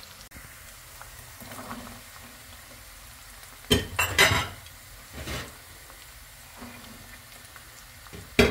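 Chopped onion sizzling in oil in a nonstick wok. Diced carrot is tipped in a little under four seconds in, and more diced root vegetable goes in after it, each drop bringing a short loud burst of clatter and hiss. Another burst comes near the end.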